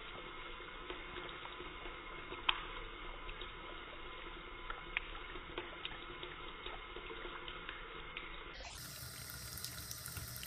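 Bathtub tap running in a thin stream, a steady watery splashing with a few sharp clicks, the loudest about two and a half seconds in. The sound is slowed down and dull, then snaps back to normal speed with a short rising sweep near the end.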